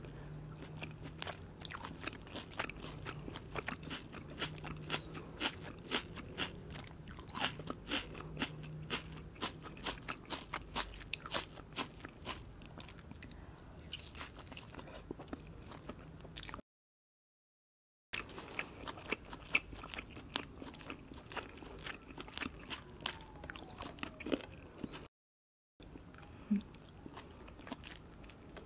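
Close-miked chewing and biting of grilled meat: pieces of sirloin steak and a grilled chicken chop, with many small irregular wet clicks of mouth and teeth. The sound cuts out to dead silence twice for a second or so, about two-thirds of the way through and again near the end.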